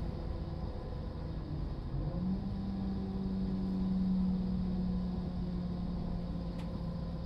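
Inside a Class 172 Turbostar diesel multiple unit on the move: the steady drone of its underfloor diesel engine and transmission over the rumble of the running gear. About two seconds in, a humming note steps up a little in pitch and holds there.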